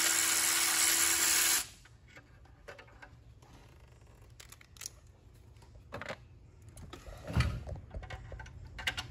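Milwaukee cordless stubby impact gun running in one steady whirr as it backs out a bracket bolt, then stopping abruptly about a second and a half in. Light clicks and clinks of parts being handled follow, with a single thump a little before the end.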